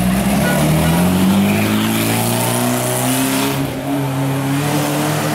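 Vintage car engine pulling away at low speed, its note rising as it accelerates over the first few seconds and then running steadily.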